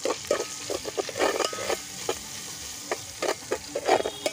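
Metal spatula stirring and scraping ginger paste and turmeric frying in hot oil in an aluminium pot. Irregular scrapes run over a steady sizzle.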